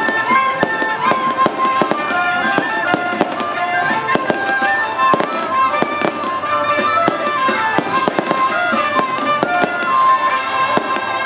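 Traditional festival music with a high, stepping melody plays while fireworks pop in rapid, irregular bangs throughout.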